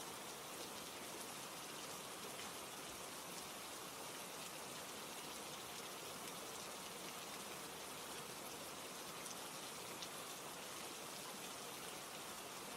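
Steady rain ambience, an even hiss of falling rain, with a few faint crackles from a fireplace.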